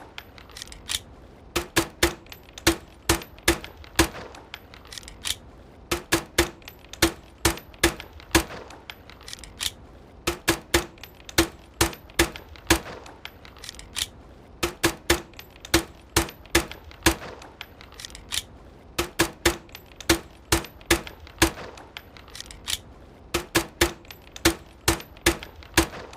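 Suppressed shots from an HWK21 pistol fitted with a homemade silencer, heard as sharp, clicky cracks. They come in quick strings of five or six, about three a second, with a short pause between strings.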